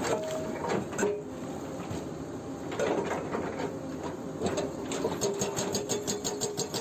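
Hydraulic breaker on a Hyundai 210LC-7H excavator hammering rock in rapid blows, about six a second. The blows turn sparse and irregular for a few seconds in the middle and pick up again near the end, over the excavator's steady engine hum.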